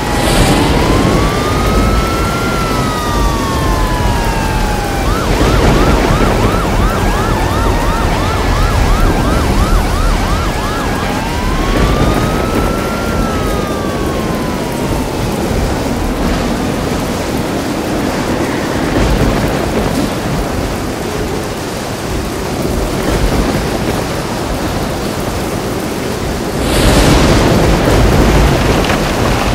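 Heavy thunderstorm rain with an emergency vehicle siren over it: a slow rising-and-falling wail, about five seconds of fast yelp, then the wail again, dying away about halfway through. A loud crack of thunder near the end.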